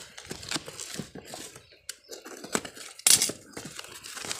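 Cardboard parcel being opened by hand: packing tape torn and flaps rustled and pulled open, with a sharp loud rip about three seconds in.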